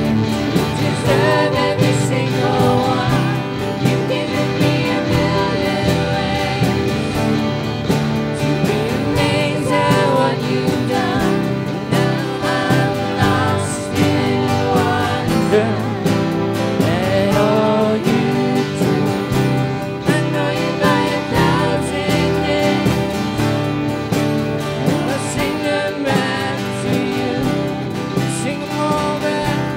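Live worship band playing a contemporary praise song: a woman's lead vocal with backing singers over electric and acoustic guitars.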